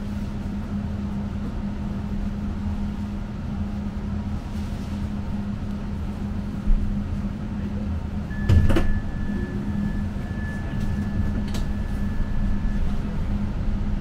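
Tram interior while riding: a steady electric hum over a low rumble. A thud comes a little before the middle and a knock about two seconds later, followed by a thin, steady, high tone lasting about four seconds.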